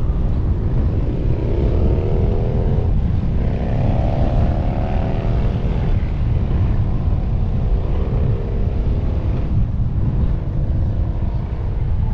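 Car engine pulling away: its pitch rises, drops as it shifts up about three seconds in, rises again, then settles into a steady cruise. Heavy wind rumble runs under it from the roof-mounted microphone.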